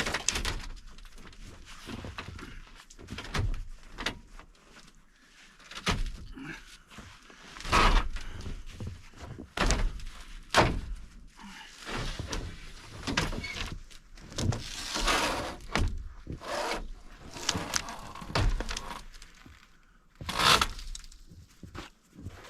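Irregular thunks, knocks and scrapes of large framed screen panels being pulled out of a truck bed and set against a vehicle.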